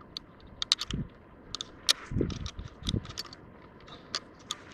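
Rifle action being reloaded by hand: a string of sharp metallic clicks and rattles from the bolt and cartridges, with a few dull low knocks in between.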